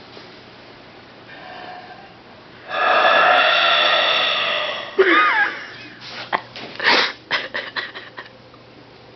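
A loud, drawn-out human burp lasting about two seconds, given on cue. It is followed by a high, squeaky sliding sound and a string of short, sharp noises.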